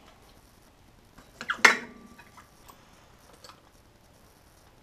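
Metal hand tools clinking against each other: a short clatter about a second and a half in, with a brief metallic ring, then a faint click a couple of seconds later.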